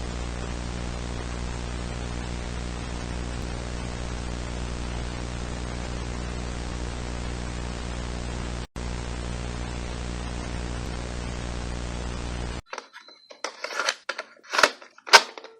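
Steady tape-playback static: an even hiss over a low electrical hum, with a split-second dropout about two-thirds of the way through. Near the end the static cuts out abruptly and a few short, loud crackling glitch bursts follow.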